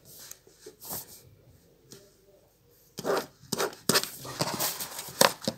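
A pen scratching on paper in short scribbling strokes, with some rustling of the sheet. There are a few strokes about a second in, a short pause, then a quicker run of strokes for the last couple of seconds.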